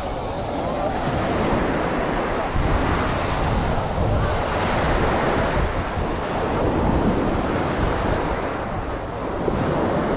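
Sea waves breaking and washing on the shore, a continuous surf noise, with wind rumbling on the microphone.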